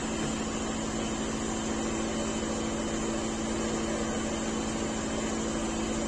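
Handheld blower running steadily, a constant motor hum over a rush of air, as it blows drilling dust out of anchor holes in a concrete pier.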